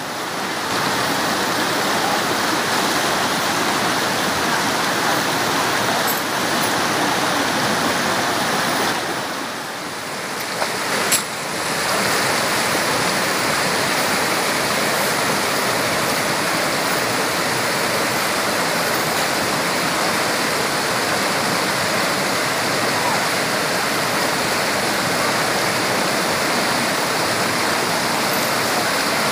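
Shallow river rapids rushing steadily over rocks. The water noise dips briefly about ten seconds in, with one sharp click just after.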